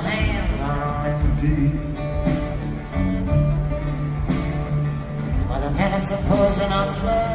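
Live folk-rock band music: a strummed acoustic guitar over steady bass notes, with a lead melody line that bends in pitch near the start and again about six seconds in.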